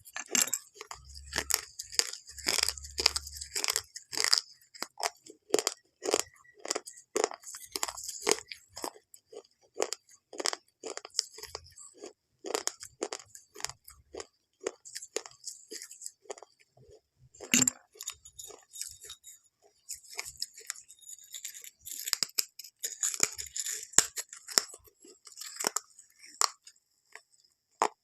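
A long run of crisp crunches, one or two a second at an uneven pace.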